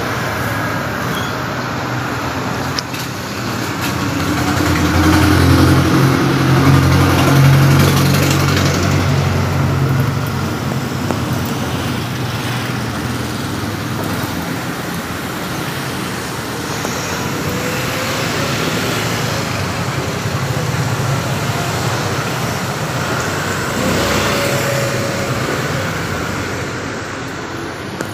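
Road traffic passing close by, with a heavier vehicle's low engine rumble swelling to its loudest about five to eight seconds in.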